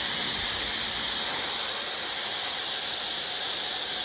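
Shark HyperAIR hair dryer running at its low fan setting with an attachment fitted, a steady airy hiss of blowing air.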